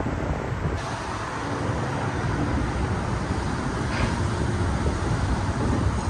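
Road traffic going by on a multi-lane city street: a steady wash of tyre and engine noise with a low rumble.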